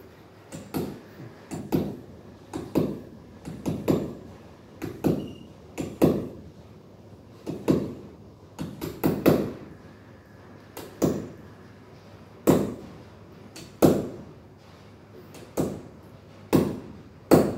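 Hammer driving a nail into a hard wall: sharp blows about once a second at an uneven pace, each with a short ring.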